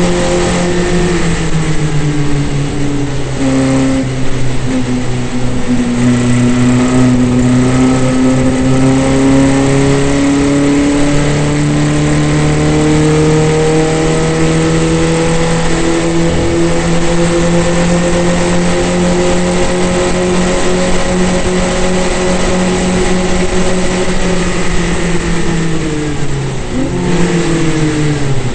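Formula Vee racing car's air-cooled Volkswagen flat-four engine at full race revs, heard from on board. The pitch dips over the first few seconds, climbs slowly and holds, then falls steeply near the end as the car slows for a corner.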